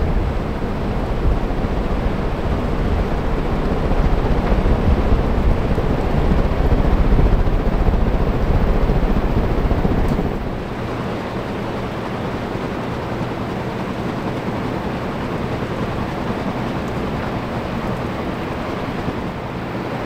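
Many ceiling fans running at once: a steady rush of moving air. For the first half, low wind buffeting on the microphone is heavy; it drops off suddenly about ten seconds in, leaving a steadier air rush with a faint low hum.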